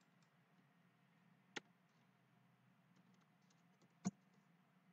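Near silence broken by two single sharp clicks, one about a second and a half in and a louder one about four seconds in, from a computer mouse button or key being pressed while working the software.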